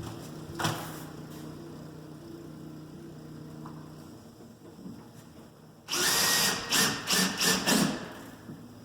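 Power drill boring a screw hole in a door for a handle set, starting about six seconds in and running for about two seconds in several short surges.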